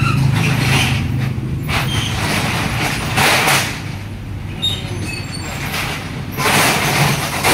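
Street traffic: a motor vehicle's engine hum that fades out about a second and a half in, then two short rushing noise bursts about three seconds apart.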